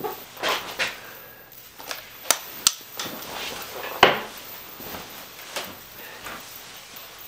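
Movement noises of a man sitting down in a chair: clothing rustling, two sharp clicks a little after two seconds and a louder knock about four seconds in.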